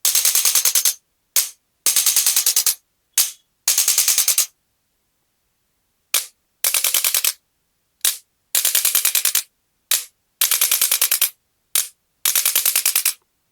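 Handheld chiropractic adjusting instrument being fired for a cervical adjustment. Each time, one sharp click is followed about half a second later by a rapid train of about ten clicks lasting under a second, and this is repeated about every two seconds.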